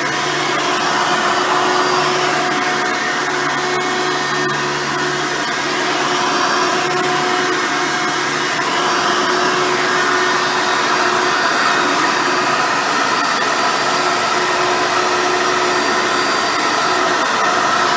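Hoover Soft & Light Supreme vacuum cleaner with a 7-amp motor running steadily while vacuuming, a continuous motor whine with a steady hum.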